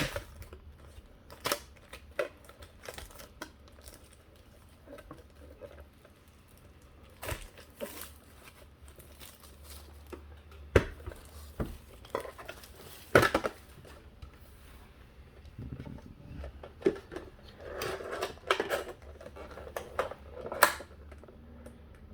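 Pokémon collector's tin being handled and its wedged-in booster packs pried out: scattered clicks and knocks of metal and plastic, with some crinkling of the packs.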